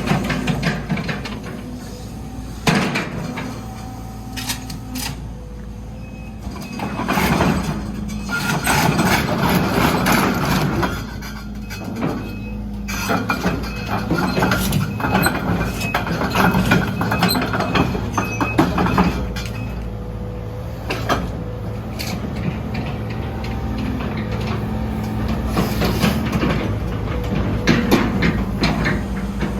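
Sumitomo SH120LC-6 excavator running: a steady low engine hum with irregular clanks and knocks, and stretches where the machine gets louder.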